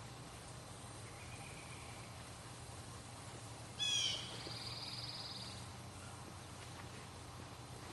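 Songbird calling outdoors: a faint call, then a sudden loud sharp phrase followed by a buzzy high trill lasting about a second and a half. A faint steady low hum lies underneath.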